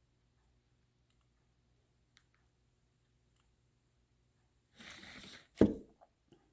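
Handling noise from hot-gluing sticks onto a plastic jug: a few faint clicks, then a brief scrape about five seconds in, followed at once by a loud thump and a small knock.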